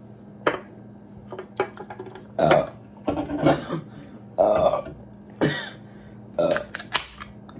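Several loud burps in a row in the middle, brought on by chugging carbonated Mountain Dew. Sharp clicks of aluminium cans being set down and handled on a glass tabletop come before and after them.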